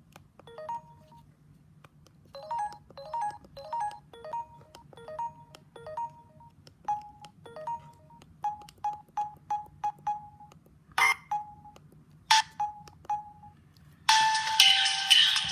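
Samsung S3600 mobile phone: a run of short, quiet electronic beeps and two sharp clicks, then a ringtone melody starts playing loudly through the phone's speaker near the end.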